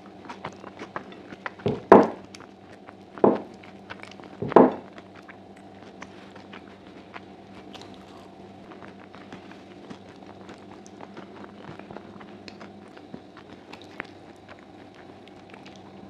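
Close-miked eating of stewed sheep's trotters with chickpeas: chewing with many small wet mouth clicks, and three louder smacks in the first five seconds. A faint steady hum runs underneath.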